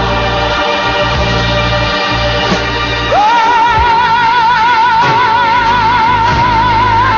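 Gospel music: a soloist holds one long, high note with a wide vibrato from about three seconds in, over sustained bass and accompaniment.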